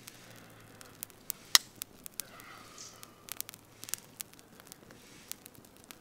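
Small grass tinder fire crackling, with scattered sharp pops at irregular intervals; the loudest snap comes about one and a half seconds in.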